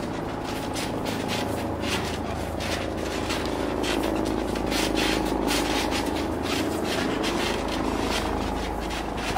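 Feet scuffing and shuffling on a trampoline mat as two people wrestle. Under it, a steady engine drone from nearby machinery, its pitch wavering a little midway.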